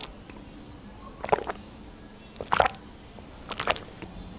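A person swallowing gulps of water from a glass close to the microphone: a few short, separate swallows about a second apart.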